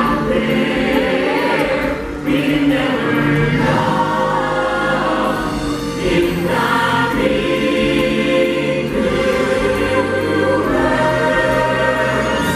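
Stage-musical number: a cast ensemble singing together over full backing music, heard through a theatre's sound system.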